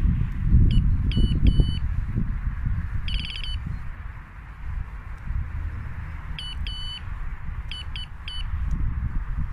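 Electronic fishing bite alarm beeping: a few short beeps and a held tone in the first two seconds, a quick rapid run of beeps about three seconds in, then two more groups of short beeps later on. A low rumbling handling noise sits underneath, strongest at the start.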